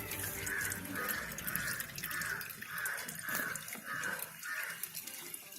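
Old engine oil pouring from the Maruti Alto 800's sump drain hole into a pan, with a pulsing, glugging splash about twice a second.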